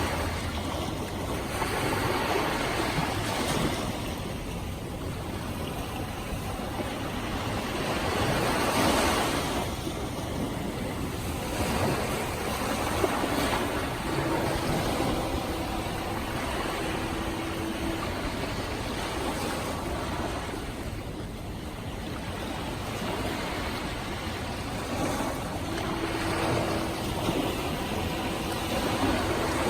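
Ocean waves breaking and washing up on a sandy beach, the surf rising and falling every few seconds. A faint steady hum comes in twice, for a few seconds each time, about halfway through and near the end.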